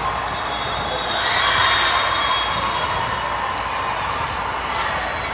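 Volleyball gym ambience: a steady murmur of spectator voices and court noise, with a few sharp knocks of ball or hand contact.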